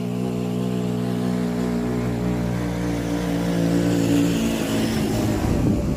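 Motorbike engine running at a steady speed with a constant drone. It turns rougher and less even in the last second and a half.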